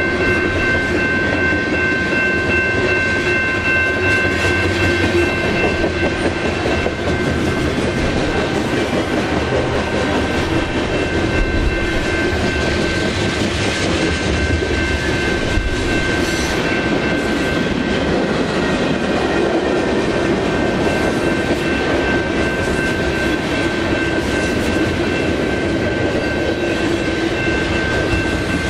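Freight train rolling past, its cars' wheels clicking over the rails steadily, with several steady high-pitched ringing tones from the wheels and rails.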